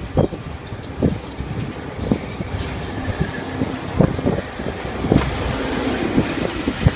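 Carnival Ferris wheel running: a steady low rumble with irregular knocks and clunks from the ride's mechanism.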